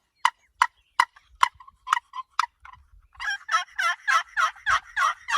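Turkey call imitating wild turkeys: a string of sharp, single clucks about two a second, then, about three seconds in, a fast, loud run of repeated yelps.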